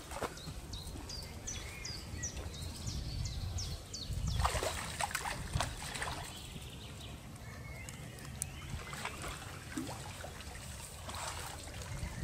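A hooked carp thrashing and splashing at the water's surface as it is drawn over a landing net, with the sharpest splashes in the middle. A small bird repeats a high, falling chirp about three times a second in the first few seconds.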